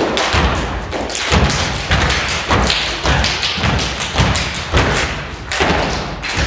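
A step team stepping: a fast, steady run of stomps and claps, several sharp impacts a second.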